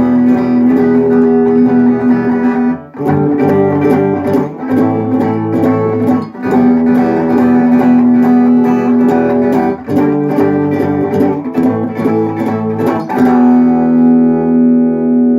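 Guitar strumming chords, changing chord about every three and a half seconds, then a last chord left ringing near the end.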